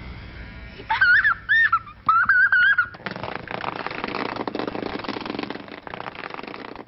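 A small boy making play noises with his voice: high, squeaky, wavering calls about a second in, then from about three seconds in a long buzzing lip-trill 'brrr' like a toy car's engine as he pushes a metal tool along the floor.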